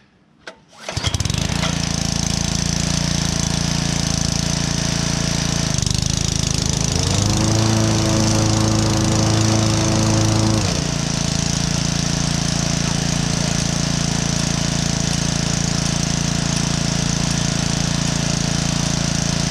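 A 5.5 hp Honda single-cylinder lawnmower engine starts on choke about a second in and runs steadily. About six seconds in it speeds up, holds a higher speed for a few seconds, then drops back to its earlier speed near eleven seconds.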